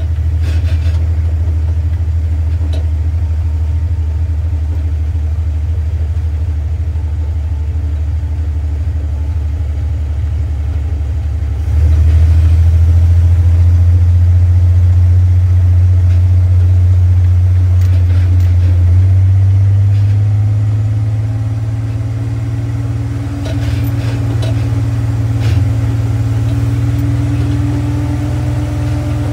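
A vehicle engine running with a steady low hum; it gets louder about twelve seconds in, then its pitch rises in steps in the second half.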